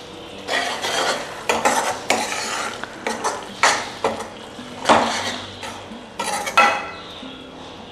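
A spoon stirring and scraping around a pan of gravy, in uneven strokes with a few sharper clinks against the pan, as cream is mixed in.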